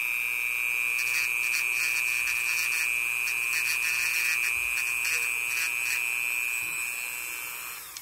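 Dremel rotary tool running on a low speed setting with a steady high whine. Its sanding drum grinds in short scraping touches on a plastic puzzle piece, taking down the bump that serves as the click mechanism. The whine stops near the end.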